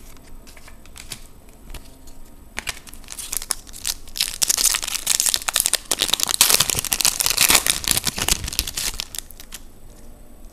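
Crinkling and tearing of a foil trading-card pack wrapper being opened by hand. It starts with a few light clicks, swells to dense crackling from about three seconds in, and dies down near the end.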